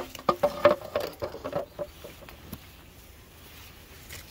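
A burst of crackling, rustling leaves and twigs brushing close against the microphone during about the first second and a half, then it dies down to a faint background.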